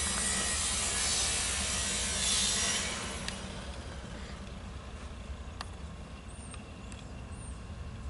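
Low, steady rumble of a distant diesel freight train, with a loud hissing rush over the first three seconds that then dies down. A few faint bird chirps come near the end.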